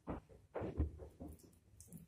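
Metal spoon scraping and knocking against a stainless-steel bowl while a runny quiche filling is poured out of it, in a quick series of short, irregular scrapes, loudest in the first second and a half.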